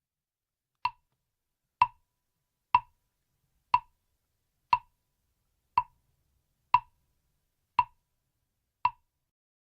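A mokugyo, the Buddhist wooden fish drum, struck nine times at a steady pace of about one hollow knock a second, each knock dying away quickly.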